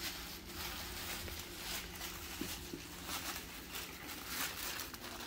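White packing paper crinkling and rustling as a wrapped crystal specimen is unwrapped by hand, with many small crackles throughout.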